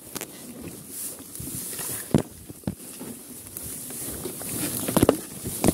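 Tall grass rustling with several irregular knocks and clunks, the loudest about five seconds in, as a dirt bike is handled and shifted in the grass.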